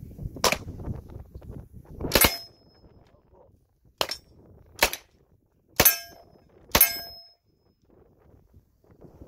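West Hurley 1928 Thompson submachine gun in .45 ACP firing single shots, six in all, spaced roughly a second apart. Several shots are followed by a brief ringing tone.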